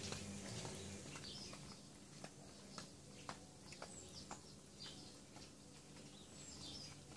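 Two kittens lapping milk from a saucer: soft, irregular clicks about two a second, with a few faint bird chirps behind them. A low hum at the start fades out about a second in.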